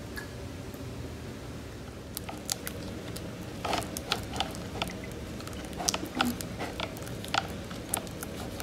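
Spatula stirring thick blue glitter glue slime mixture in a plastic bowl. From about two seconds in it makes irregular sticky clicks and squelches.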